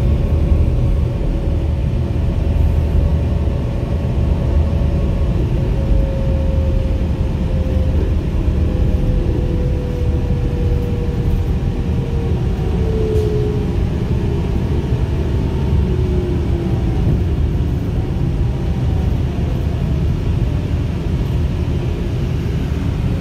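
Cabin sound of a 2010 New Flyer D35LFR diesel city bus under way: a steady low engine and road rumble. Over it a drivetrain whine slides slowly down in pitch from about a quarter of the way in, as the bus slows.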